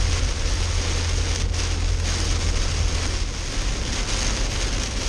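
Heavy rain hitting a Jeep's windshield and roof as it drives on a wet road, heard from inside the cab, over a steady low rumble of road and engine.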